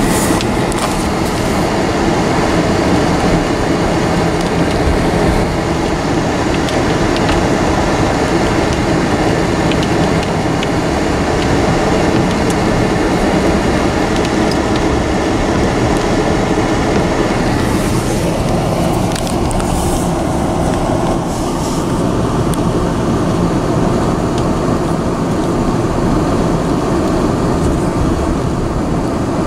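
Steady driving noise of a car on a wet road, heard from inside the cabin: tyre hiss and engine running at a constant speed.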